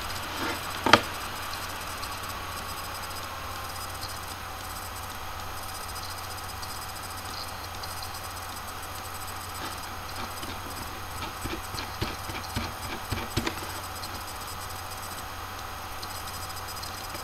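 Steady background hum and hiss with no speech, broken by one sharp click about a second in and a cluster of light clicks and taps about twelve to fourteen seconds in.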